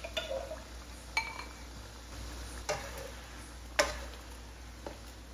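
Wooden spatula knocking and scraping against a nonstick wok as chicken feet curry is stirred: a handful of sharp knocks about a second apart, with a brief ringing clink about a second in.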